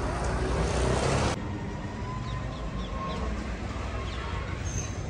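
Busy street noise: a steady low traffic rumble and hiss, with a louder rush of noise over the first second or so that cuts off abruptly, then faint short high chirps over the steady street noise.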